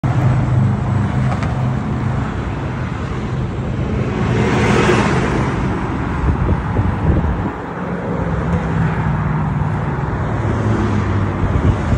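Road traffic with a vehicle passing about five seconds in, over a steady low motor hum that drops out briefly a little past the middle and then resumes.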